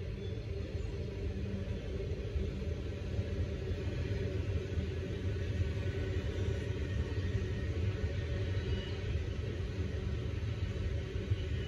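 A train running past with a steady low rumble and a faint steady hum, slowly growing a little louder.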